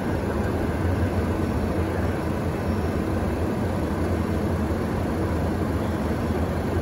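Light airplane's engine and propeller running steadily, heard from inside the cockpit with rushing airflow, a low, even hum with no change in pitch.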